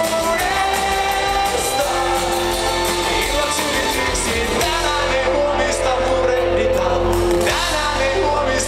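Live pop-rock band with electric guitars, bass, drums and violin, and a sung vocal, played loud through a festival PA and heard from within the crowd.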